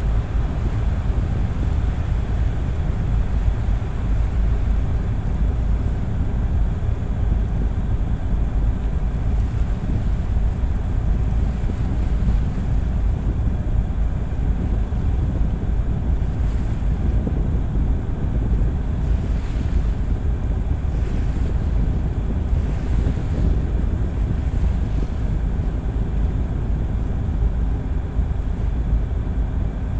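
A tugboat under way: a steady low rumble of wind on the microphone over the drone of the tug's engine, with water washing past the hull.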